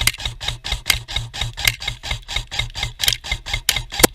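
Running footsteps on a forest floor with gear rattling and jostling at each stride, a fast, even rhythm of clicks and thuds.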